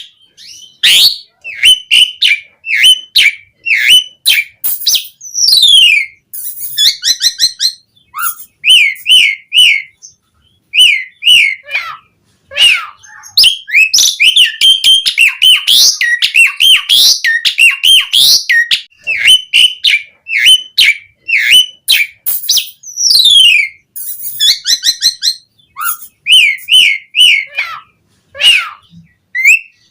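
Pied starling (jalak suren) singing a long, varied song packed with borrowed phrases. It mixes loud whistles, fast repeated chattering notes and falling whistled glides, broken by short pauses.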